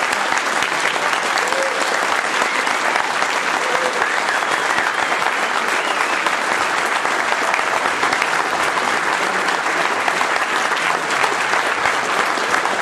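An audience applauding steadily in a long, dense ovation, with a voice or two calling out briefly in the first few seconds.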